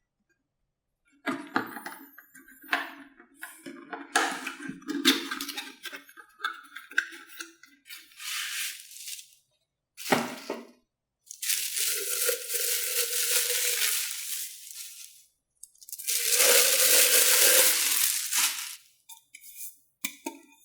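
Handling of a 500 ml plastic drinks tumbler: a run of taps and clinks, a sharp knock about ten seconds in, then two long steady hissing sounds of about four and three seconds, and a few light taps near the end.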